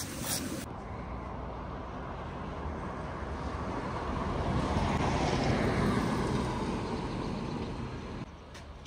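A vehicle passing along the road: a steady rushing that swells to its loudest about five to six seconds in, then fades and drops away near the end.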